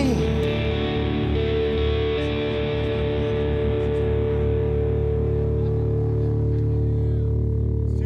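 Band music with a distorted electric guitar holding sustained notes over a steady bass line, between sung verses. The singing comes back right at the end.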